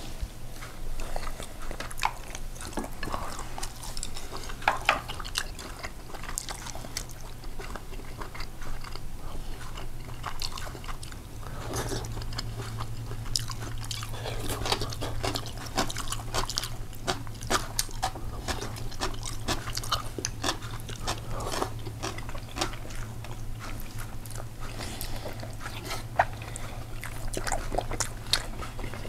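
Close-up eating sounds: a person chewing and crunching Korean home-cooked food, with scattered sharp clicks. A low steady hum comes in about twelve seconds in.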